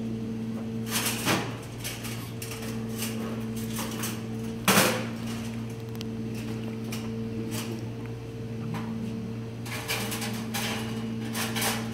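Scattered knocks and clatter of things being set down and handled on a kitchen counter, the loudest about five seconds in and a busier run near the end, over a steady electrical hum from kitchen equipment.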